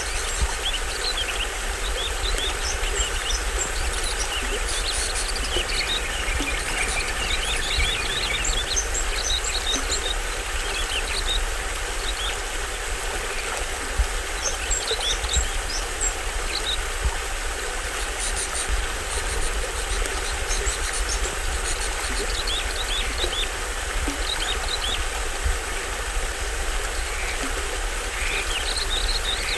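A small waterfall on a stream rushing steadily, with forest birds giving short, high chirps and calls in bursts throughout.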